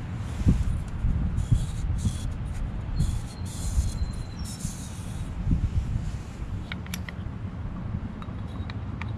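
About four short hissing spurts from a spray nozzle aimed at a lawn tractor carburetor during cleaning, over a steady low rumble of wind on the microphone. A few light clicks from handling the parts follow near the end.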